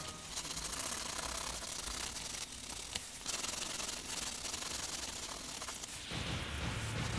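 A graphite pencil scratching and rubbing on paper as it shades, heard as an uneven dry hiss of strokes. Music comes back in near the end.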